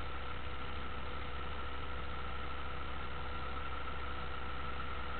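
A vehicle engine idling steadily under a constant hiss, with a thin steady whine and no change in pitch or level.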